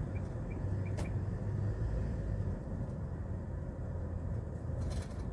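Hyundai Porter 2 diesel truck driving at road speed, heard from inside the cab: a steady low engine and road hum. A single sharp click comes about a second in, and a short hiss near the end.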